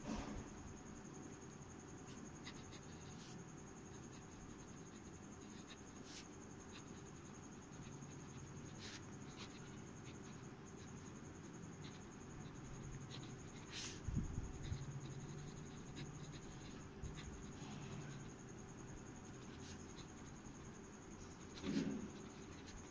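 Faint scratching of a Parker Vector fountain pen's fine steel nib writing on ruled paper, with small ticks as the nib lifts and lands between letters. A soft bump a little past halfway.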